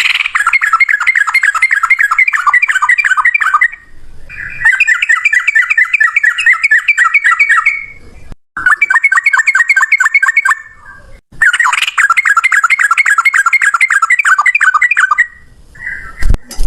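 Sooty-headed bulbul (trucukan) singing long rolling trills of fast, repeated chattering notes in four bouts of about three to four seconds each, with brief pauses between them. A sharp knock comes near the end, followed by scattered shorter calls.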